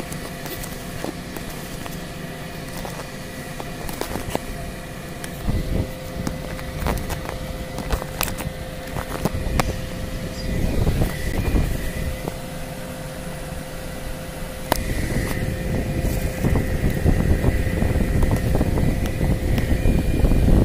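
A steady mechanical hum with scattered sharp clicks and knocks. A low rumble grows louder in the second half.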